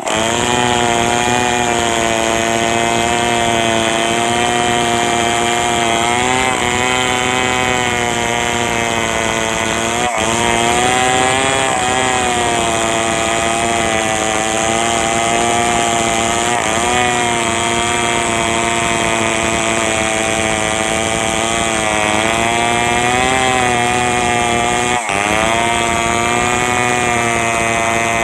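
Large two-stroke chainsaw with a long bar running at full throttle while cutting into the trunk of a big bayur tree, its engine note wavering slightly as the chain works under load. The sound breaks off for an instant twice.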